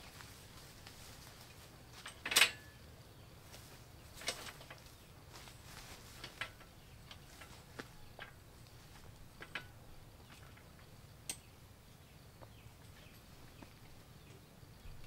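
Scattered knocks and clanks of a metal stepladder being moved, set up and climbed, the loudest about two seconds in and smaller ones every second or two after.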